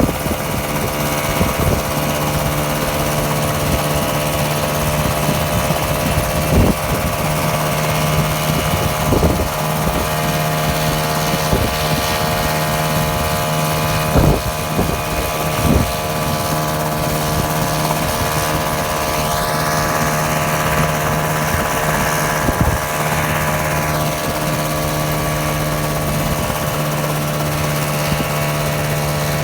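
Micron ultralight coaxial helicopter running steadily, its engine and rotors making an even drone with a few brief knocks. A higher whine comes in for a few seconds about two-thirds of the way through.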